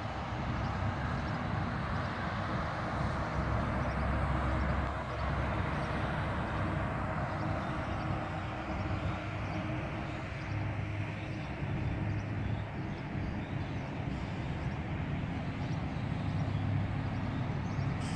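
A car running along a road: a steady low rumble of engine and tyre noise under a broad, even hiss.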